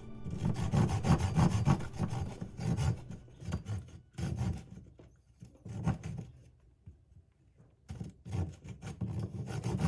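A saw cutting wood in runs of rasping strokes, stopping for a moment a little past the middle before starting again.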